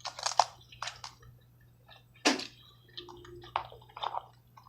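Wet, squishy chewing and lip-smacking of a person eating sauce-covered seafood: a string of short smacks and clicks, with one louder smack about two seconds in.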